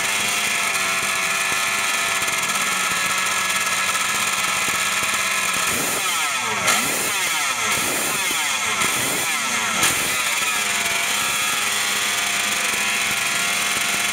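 Yamaha 250 RD05 replica Grand Prix racer's two-stroke engine idling on its stand, then blipped several times in quick succession between about six and ten seconds in, revs rising and falling sharply, before it settles back to a steady, crackly idle.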